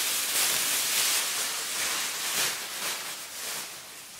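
Large clear plastic bag crinkling and rustling as it is pulled up and off a wheelchair. It is loudest for the first three seconds and tails off near the end.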